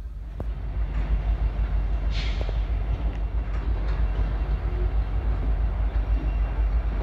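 Diesel freight locomotives running as they move slowly through a rail yard, a steady low rumble, with a brief hiss about two seconds in.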